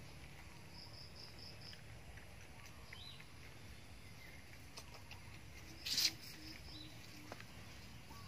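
Quiet outdoor ambience with two short runs of quick, evenly spaced high-pitched chirps, one near the start and one about six seconds in. About six seconds in there is a brief loud noise, followed by a short run of low notes.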